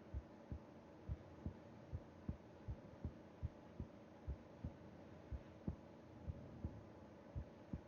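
A sleeping person's heartbeat heard through the chest wall, a steady lub-dub of paired low thumps at about one beat a second: a slow resting rhythm.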